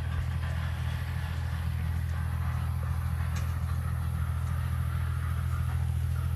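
An engine or motor running steadily, a constant low hum.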